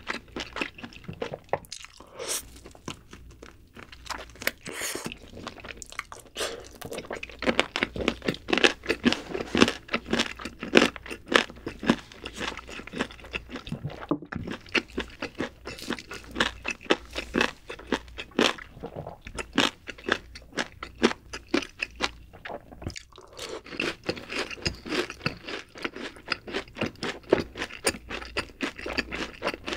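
Close-miked chewing of glazed grilled chicken and a cheese ball, a dense run of crisp crunches with a brief pause about 23 seconds in.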